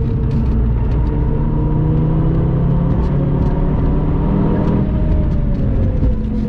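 Stage-2-tuned 2013 Audi TT RS's turbocharged five-cylinder engine, heard from inside the cabin, its note falling as the car slows from about 130 to under 90 km/h, with a brief rise and fall about halfway through.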